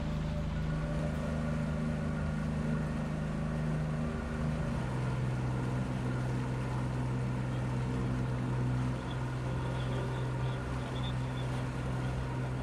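An engine running steadily with a low hum that drops a step in pitch about five seconds in.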